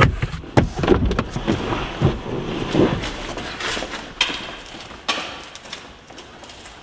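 A driver climbing out of a parked car: rustling, clicks and knocks of movement, fading as he moves away.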